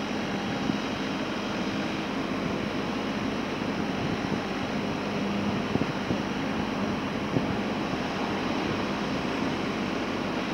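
Kubota RX-306E mini excavator's diesel engine running steadily while the hydraulics raise the boom and arm, a constant rushing hum with a few light clicks.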